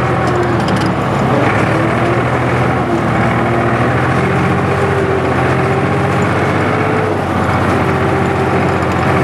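Engine of the vehicle towing a sled through snow, running steadily at low speed.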